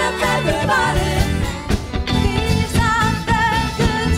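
Live pop party band playing: a lead vocal singing a wavering melody over drums, bass and guitar with a steady beat.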